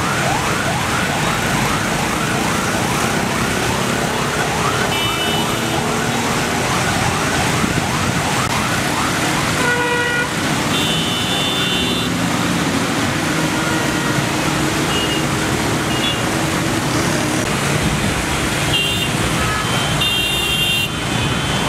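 Jammed road traffic with engines running, and an electronic siren yelping in quick up-and-down sweeps, about three a second, for the first eight seconds or so. Car horns honk several times around the middle and near the end.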